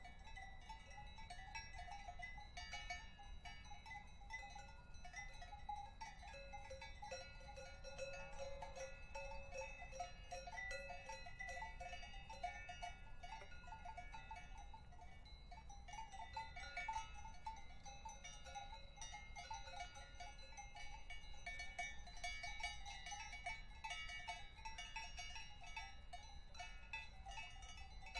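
Several cowbells clanking and ringing continuously, their metallic tones overlapping in an irregular jangle.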